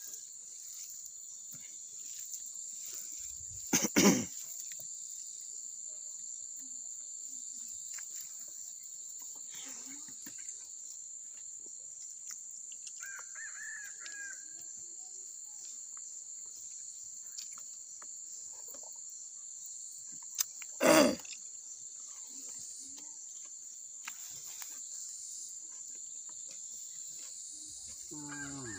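Steady high-pitched insect chorus, with faint mouth and hand sounds of eating close to the microphone. Two loud thumps break in, about four seconds in and again near the middle, and a short bird call sounds briefly midway.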